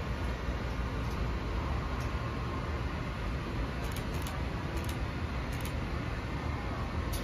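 Amtrak passenger train of Amfleet cars behind an ACS-64 electric locomotive pulling slowly out, the cars rolling on the rails with a steady low rumble. A few faint high ticks come about halfway through.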